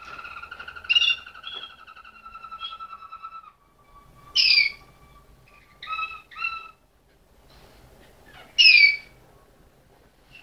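Malinois (Waterslager) song canary singing: a low rolling trill for the first three and a half seconds, then a softer held note, then four loud short calls spaced through the rest.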